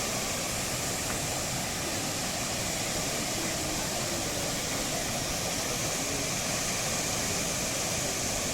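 Steady rush of waterfall and river water, an even noise without breaks.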